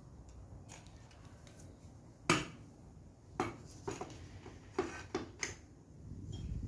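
About six sharp clicks and light knocks spread over a few seconds, the first one about two seconds in the loudest: small hard parts being handled.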